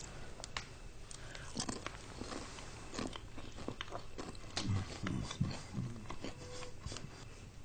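Knife and fork clinking and scraping on a plate while burnt, charred food is cut and chewed with crunching. It comes as a string of short, sharp clicks, busiest about five seconds in.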